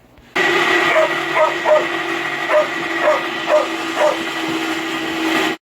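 Electrolux LAC13 top-load washing machine running its spin cycle with a loud steady hum and whine, broken by short high squeaks about twice a second. The noise is the fault the technician puts down to either a slipped gear spring or a broken actuator.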